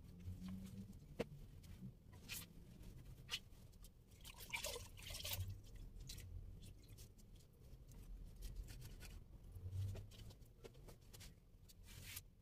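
Faint rustling of clothes being handled and pulled from closet shelves, with a few light clicks and a brief louder rustle about five seconds in.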